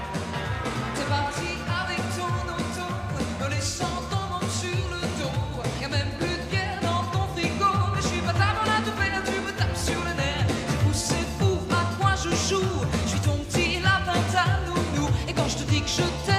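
A woman singing an upbeat pop song into a microphone over band accompaniment with a steady drum beat.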